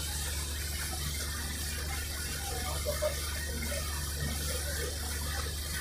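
Riverboat under way: a steady low engine drone beneath the even rushing of water churned along the hull and wake.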